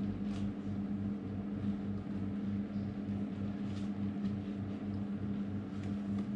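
Steady low mechanical hum with a pulsing beat about three or four times a second, under a few faint clicks and rustles of a motorcycle helmet and its communicator parts being handled.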